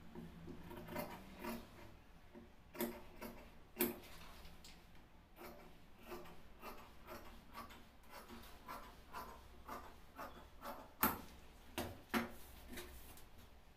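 Tailor's shears cutting through shirt fabric on a cutting table: a run of irregular crisp snips, with a few louder ones about three to four seconds in and near the end.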